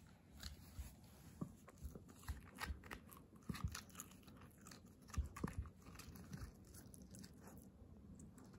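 A Kooikerhondje puppy chewing a hard white dog chew: irregular crunching bites and crackles as she gnaws at it.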